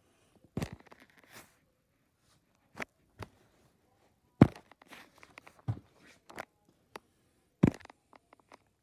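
Handling noise from a phone and shirts being moved: a handful of sharp knocks at irregular intervals, with faint rustling between them.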